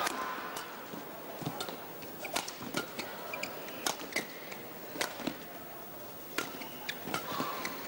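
Badminton rally: sharp, irregular racket strikes on the shuttlecock and players' footfalls on the court, with short high squeaks, over a steady hall background.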